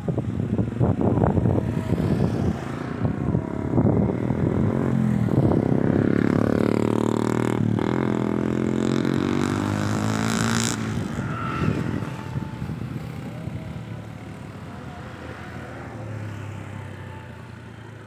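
Motor vehicle engine passing close by: its note builds over the first few seconds, is loudest around a third of the way through with a shifting pitch, then fades away slowly.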